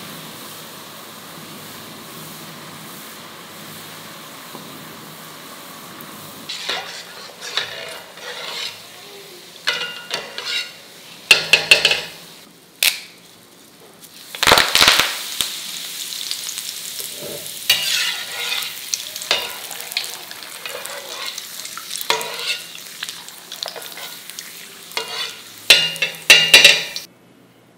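Hot oil in a kadai sizzling steadily with deep-frying pakodas. From about a quarter of the way in it breaks into loud, irregular crackling and spitting, strongest about halfway when fresh curry leaves go into the oil. It stops suddenly just before the end.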